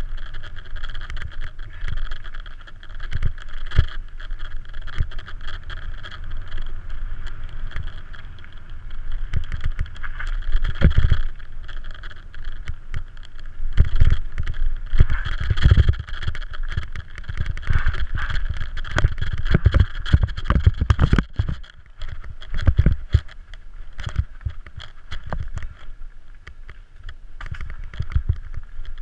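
Mountain bike descending a dirt trail heard from a helmet camera: wind rumbling on the microphone in gusts, tyres on dirt, and rapid rattles and knocks from the bike over bumps.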